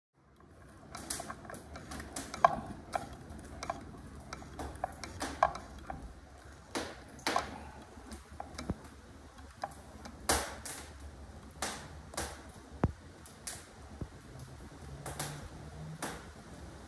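Willcox & Gibbs hand-crank chain-stitch sewing machine running, its looper mechanism clicking and clattering with sharp, uneven ticks.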